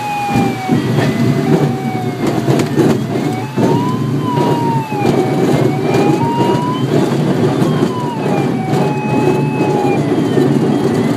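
A glider's audio variometer tone sliding slowly up and down in pitch, over the rumble and bumps of the sailplane's wheel rolling along a cracked concrete runway during the landing rollout.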